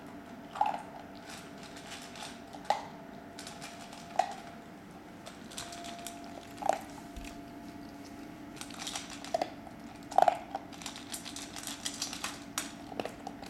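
Weimaraner puppy eating dry kibble from a stainless steel bowl: the bowl clinks with a short ring every second or two, and denser crunching and clicking fills the later part.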